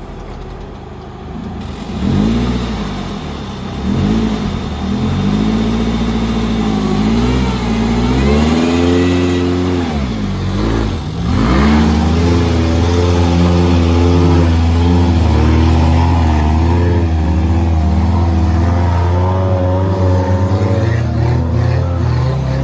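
A 4x4's engine revving up and down repeatedly, then held at high revs under steady load for roughly the second half.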